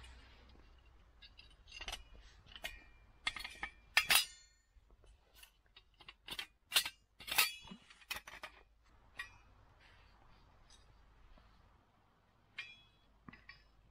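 A run of irregular, sharp clinks of hard objects knocking together, most of them in the first nine seconds and two more near the end.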